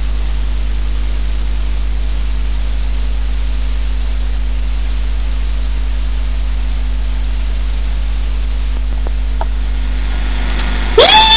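Steady hiss and low mains hum from a home VHS tape with no programme sound on it. Near the end, a loud cry starts abruptly; its pitch rises and then holds.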